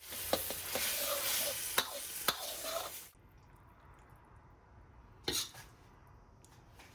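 Tomato and egg stir-fry sizzling loudly in a wok, with sharp knocks of the metal ladle against the pan as it is stirred; the sizzling cuts off abruptly about three seconds in. A short brief noise follows a couple of seconds later.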